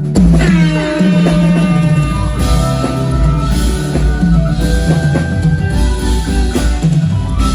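Live band playing an instrumental passage on drum kit, bass and guitar, opening on a loud hit together.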